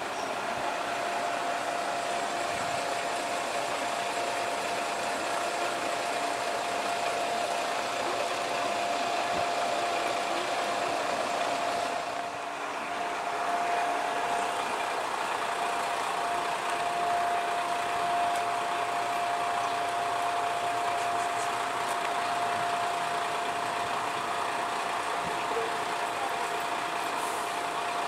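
Diesel railcar idling at the platform, a steady engine hum with a constant high whine over it.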